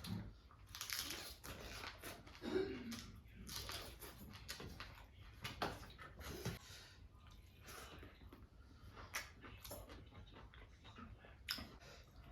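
A person eating close to the microphone: irregular chewing, biting and mouth noises.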